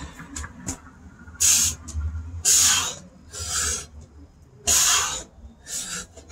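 A man breathing hard through push-ups: five forceful exhales about a second apart. Under them is a steady low rumble of wind on the microphone.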